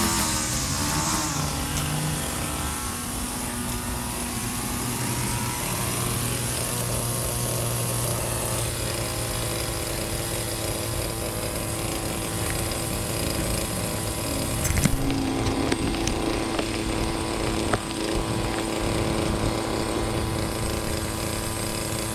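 Small gas engine of lawn equipment running steadily, with a couple of brief knocks a little past the middle.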